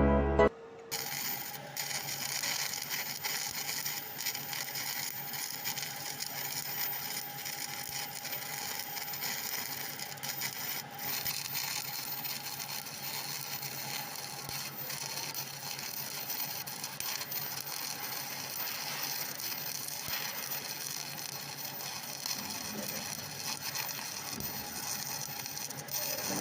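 Shielded metal arc (stick) welding with a 7018 electrode: the arc crackles and hisses steadily as the bead is run. It starts about a second in after a short break.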